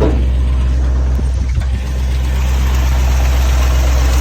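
Vehicle engine idling with a steady low hum, carrying an unexplained noise whose source the owner cannot locate.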